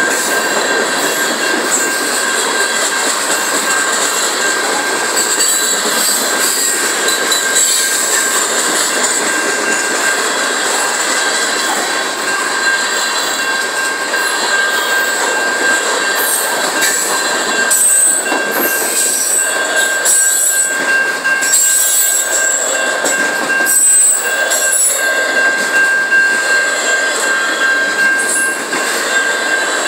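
Freight cars of a long mixed manifest train rolling past at close range, a steady rush and clatter of steel wheels on rail. A steady high-pitched tone runs through it, with sharper squealing streaks in the second half.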